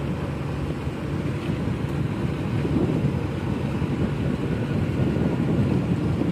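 Large car ferry's engines and propeller wash churning the water as it manoeuvres alongside to berth, a steady low rumble, with wind buffeting the microphone.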